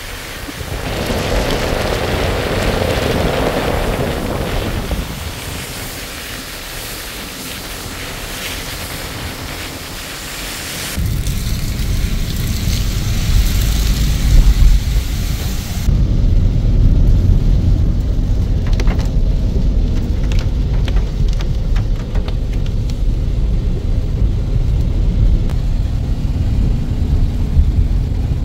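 Steady rain hiss mixed with wet-road driving noise from a moving vehicle, with a heavy low rumble. The sound shifts abruptly twice: the low rumble grows louder about eleven seconds in, and the high hiss drops away about five seconds later.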